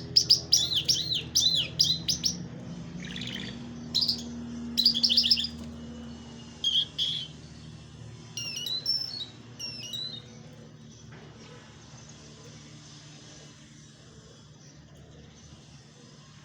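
Small birds chirping: quick, repeated notes sliding up and down, dense for the first several seconds, then sparser, and dying out about ten seconds in. A low steady hum runs underneath and is all that is left near the end.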